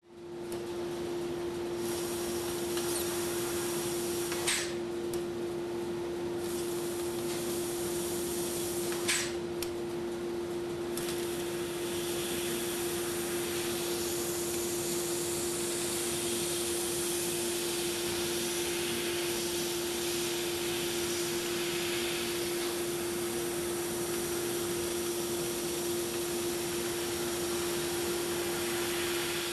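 Industrial laser cutting machine running: a steady hum under a continuous hiss, with two sharp clicks about four and a half and nine seconds in, the hiss growing fuller near the middle.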